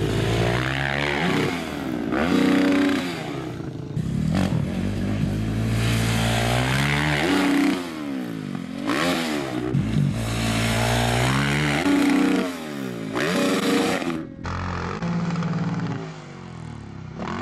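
Dirt bike engine revving hard and backing off again and again, its pitch climbing on the run-in to jumps and dropping away while the bike is in the air.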